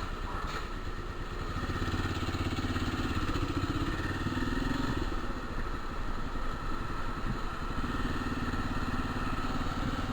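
Motorcycle engine running steadily while being ridden, getting a little louder about two seconds in.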